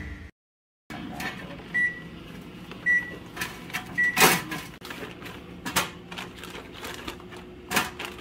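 Kitchen counter handling sounds: light knocks and clatters of food being set on a wire rack in a stainless steel tray and a plastic bag of leeks being handled. Early on, three short electronic beeps about a second apart come from a kitchen appliance.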